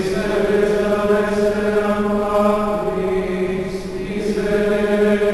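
Slow chanted singing: long, held vocal notes over a steady low drone, dipping slightly about four seconds in before the next phrase.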